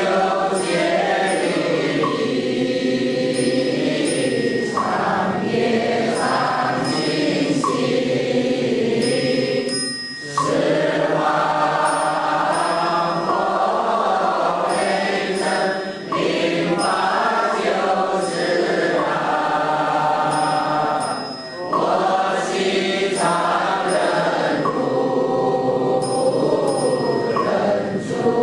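A group of voices chanting a slow Buddhist hymn, in long held phrases with brief breaks between them.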